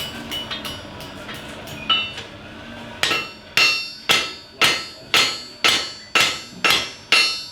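Blacksmith's hammer on an anvil: a few light ringing taps, then from about three seconds in steady forging blows, about two a second, each ringing.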